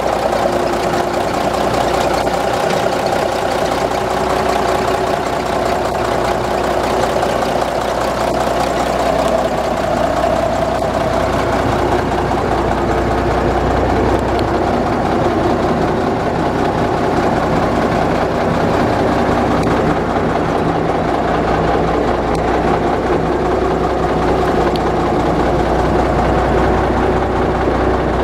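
1966 Peterbilt 351-ST truck's engine idling steadily.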